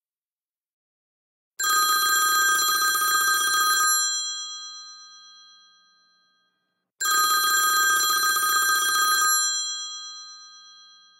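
Apple ringtone of an old-style telephone bell: two rings, each a rapid bell rattle of just over two seconds that then rings out and fades, with a pause between them.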